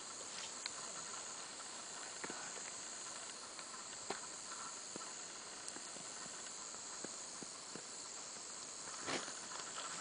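Faint outdoor ambience: a steady high hiss with scattered soft clicks, and a brief rustle near the end.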